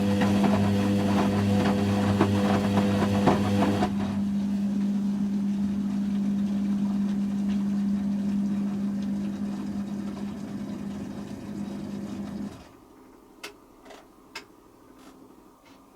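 Hoover Quattro washing machine running with a loud, steady hum. Part of the sound drops away about four seconds in, and the rest fades and cuts off near the end, followed by a few faint clicks.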